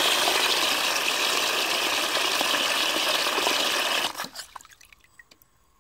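Water gushing from the float valve into a part-filled cast-iron high-level cistern, splashing onto the water surface, then shutting off abruptly about four seconds in. The float valve is worn but still shuts off when its arm is lifted.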